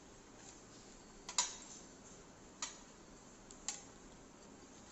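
A knife knocking against a cutting board while bread is being cut into slices: three sharp knocks about a second apart, the first the loudest, over a faint hiss.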